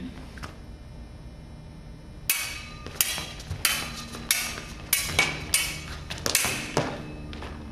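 Thin rapier-style stage swords clashing blade on blade in a staged sword fight. There are about ten sharp metallic clacks at an uneven pace, starting about two seconds in and stopping shortly before the end.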